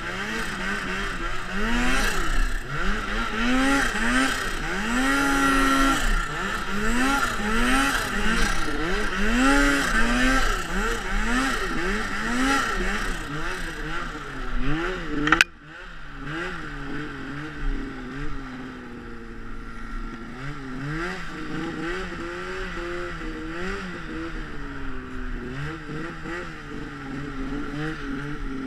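Turbocharged Arctic Cat M800 snowmobile's two-stroke engine revving up and down over and over, about once a second, under throttle blips. About halfway through there is a sharp click and the sound drops off, and the engine carries on quieter with gentler rises and falls in pitch.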